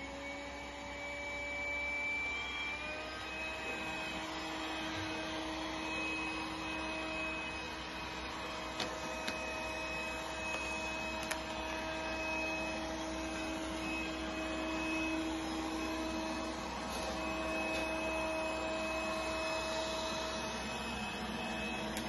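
Robot vacuum cleaner running: a steady motor whine and hum that steps up slightly in pitch about three seconds in, with a couple of light clicks midway.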